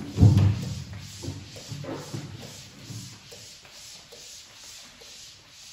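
Cloth duster rubbing chalk off a chalkboard in quick, even back-and-forth strokes, about three to four a second. A louder thump comes right at the start.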